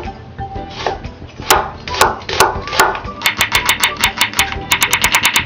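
Chef's knife slicing an onion on a wooden cutting board: a few single knocks of the blade on the board, then two quick runs of rapid knocks.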